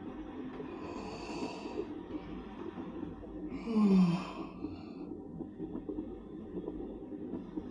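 A man yawning widely: a long breathy in-breath, then a loud voiced out-breath about four seconds in that falls in pitch.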